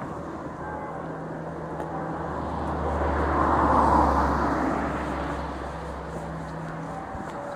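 A car passing close by, its road noise swelling to a peak about four seconds in and then fading away, louder than the church bells ringing underneath.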